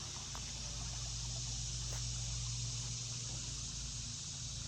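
Steady outdoor ambience: an even high hiss, with a faint low hum through the middle.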